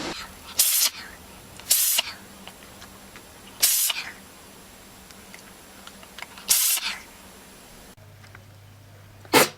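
An animal sneezing: five short, sharp, hissing sneezes, one to three seconds apart.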